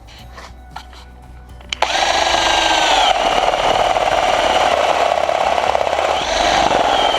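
Cordless drill (Hamilton Ultimate) starting suddenly about two seconds in, its motor whine sagging in pitch as the bit takes load, then running steadily while drilling into the workpiece. A few light clicks come before it starts.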